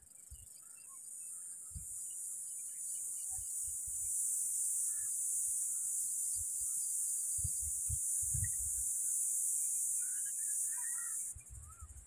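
A steady, high-pitched insect drone swells over the first few seconds and cuts off shortly before the end. Faint scattered bird chirps and a few low thumps sit beneath it.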